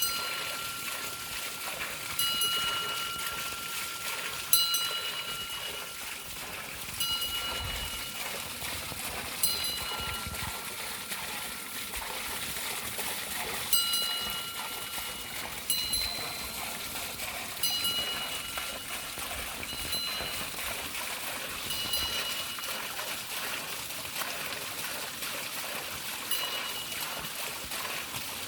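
A bell rung by a turning water wheel, struck about every two seconds, each clear ring fading away. It sounds over the steady trickle and splash of water running off the wheel.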